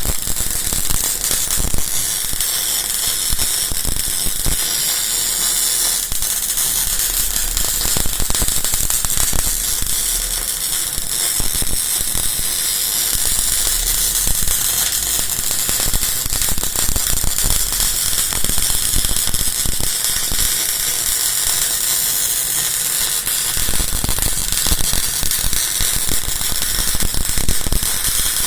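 Welding arc crackling and spitting steadily with a dense run of fast clicks, as in wire-fed bore welding building up metal inside a worn bore.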